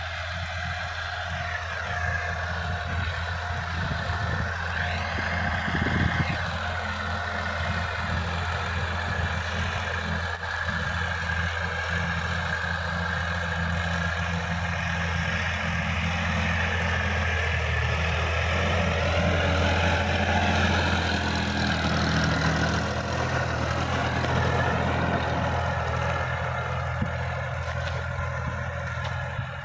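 Sonalika DI-50 RX tractor's diesel engine running steadily under load as it pulls a rotary tiller through the soil, with the tiller's mechanical whir over the low engine drone.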